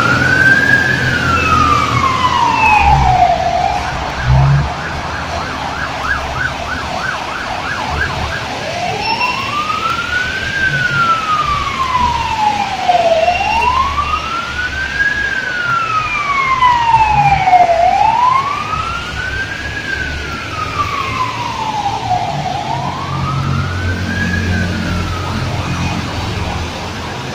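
Fire engine siren in wail mode, rising and falling slowly about every four and a half seconds. About four seconds in it switches to a fast yelp warble for a few seconds, with a short low blast, then goes back to the slow wail, over low traffic rumble.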